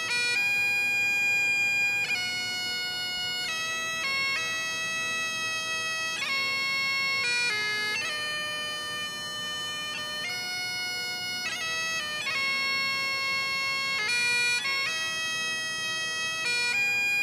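Bagpipes playing a slow tune over a steady drone. Each melody note is held for a second or two, with quick grace notes between them.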